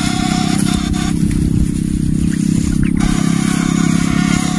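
Backpack contact-breaker ('setrum platina', PS semi type) electric fish shocker buzzing steadily as it runs, its electrode poles in the water. A higher whine over the buzz drops out for about two seconds in the middle, then returns.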